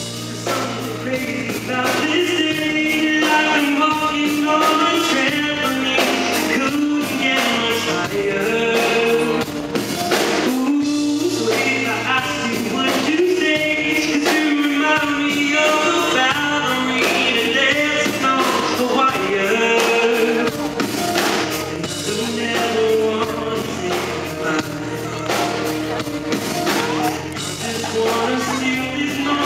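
A male singer singing a pop-rock song live into a microphone, backed by a band with bass and a steady drum beat.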